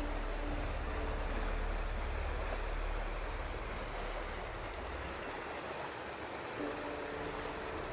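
Steady rush of flowing water. Soft background music fades out at the start and comes back in near the end.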